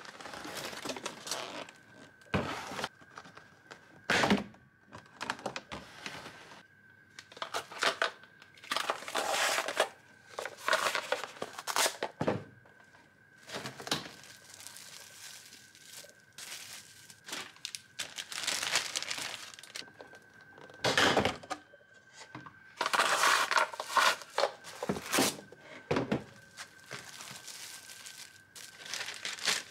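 Objects being handled at close range: irregular knocks and thunks with bursts of crinkling, rustling packaging, and a faint steady high tone underneath.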